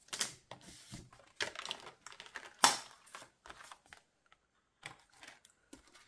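Handling of a ring-bound budget binder: the faux-leather cover opened and laminated cards on its metal rings flipped, giving a series of plastic clicks and rustles. One sharper click comes a little before the middle, then a short pause and a few light ticks near the end.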